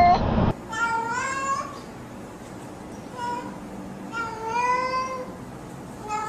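Domestic cats meowing. A loud meow is cut off abruptly about half a second in. Then come more meows spaced a second or two apart, one of them short, and another begins right at the end.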